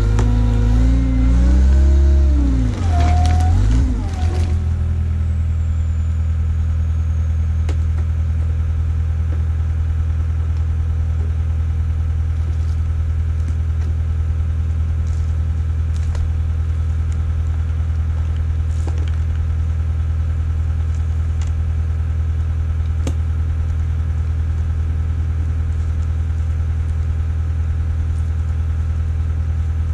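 Skid steer engine, its speed rising and falling for the first four seconds, then settling to a steady idle.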